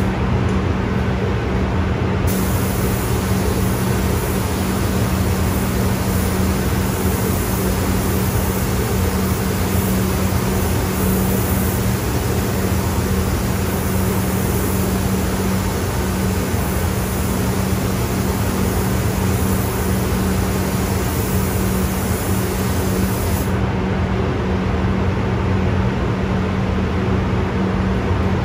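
Paint booth fans running with a steady hum. Over them a gravity-feed paint spray gun hisses, starting about two seconds in and cutting off a few seconds before the end.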